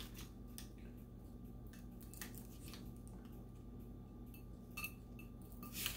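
Faint scattered clicks and light scraping of a small tool and fingers working on a hot sublimated stainless steel dog bowl, picking off heat tape and transfer paper, over a steady faint hum.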